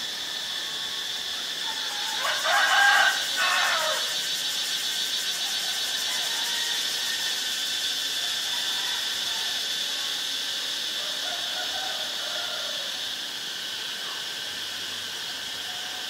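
Steady high-pitched drone of an insect chorus, with a loud two-part animal call lasting about two seconds, starting about two seconds in.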